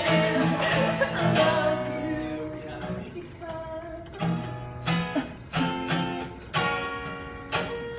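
Music: an acoustic guitar playing chords that each ring out and fade, struck again about once a second in the second half.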